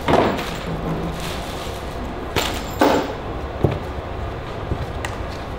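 A few light knocks and clacks as the parts of a camp kitchen box (a metal tray, a collapsible plastic basin) are lifted out and set down.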